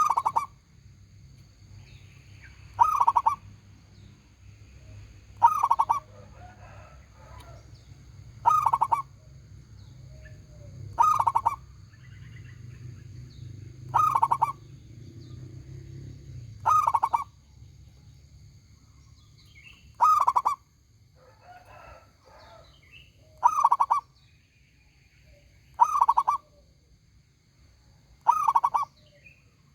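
Zebra dove (local perkutut) cooing its song phrase over and over, a short loud burst of quick notes about every two and a half to three seconds, eleven times in all.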